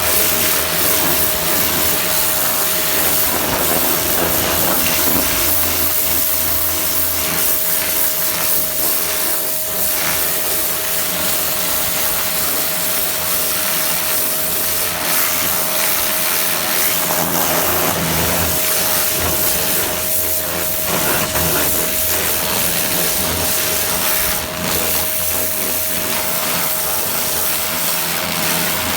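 Kranzle K1050-TST electric pressure washer spraying through its spinning rotary nozzle onto a wooden fence: a loud, steady hiss of the water jet over a constant machine whine.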